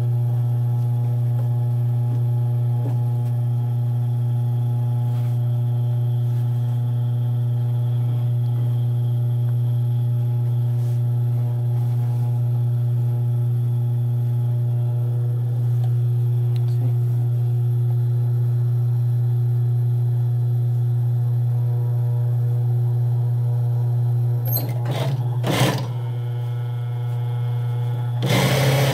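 Steady low hum of an industrial sewing machine's motor running idle, with a few clicks of handling about 25 seconds in. Right at the end the machine briefly starts stitching.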